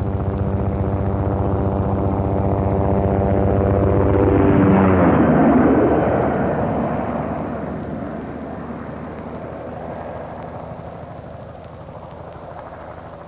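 An aircraft flying past: its engine tone drops sharply in pitch about four and a half seconds in as it goes by, the noise peaks just after, then it slowly fades away.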